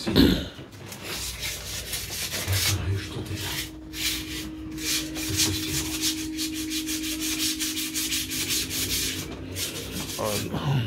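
A knock, then a long run of quick, even rubbing strokes on a hard surface, like sanding or scrubbing by hand, over a steady low hum.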